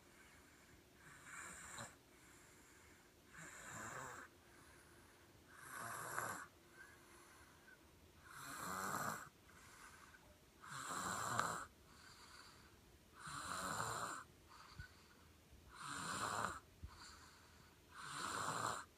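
A sleeping baby snoring in a steady rhythm: about eight snores, each roughly a second long and about two and a half seconds apart, with a fainter breath between each.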